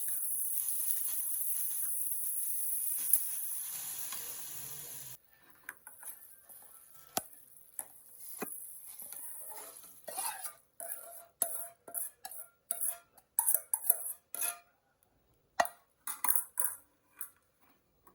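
Folding stroller being handled: a run of short clicks, knocks and rattles of hard plastic and metal parts, busiest in the second half. Before that a steady hiss cuts off suddenly about five seconds in.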